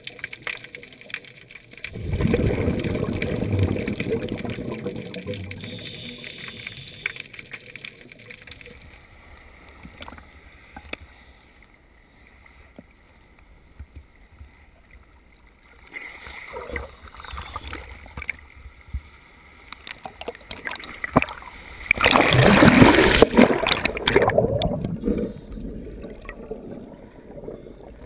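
Surf and surge washing over a camera in an underwater housing at the waterline: water sloshing and gurgling, with a surge a couple of seconds in and a louder rush of breaking whitewater about two-thirds of the way through.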